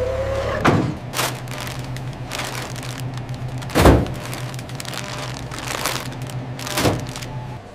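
A few dull thuds and knocks, the loudest about four seconds in, over a low steady hum.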